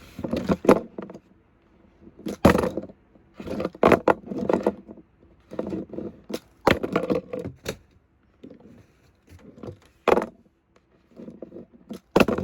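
Toy monster trucks clattering and scraping as they are flipped and land: sharp knocks and short scrapes in irregular bursts, about ten of them, with quiet gaps between.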